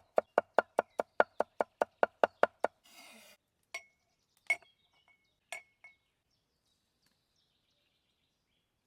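Knife chopping rapidly on a cutting board, about five strokes a second, stopping a little under three seconds in. A short scrape follows, then three or four light ringing clinks of metal on a dish.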